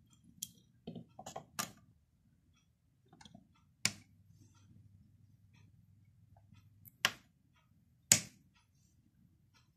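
White plastic rocker-type single-pole switches on a wiring board being pressed, giving several sharp separate clicks a second or more apart, the loudest two near the end, with faint handling of the wires in between.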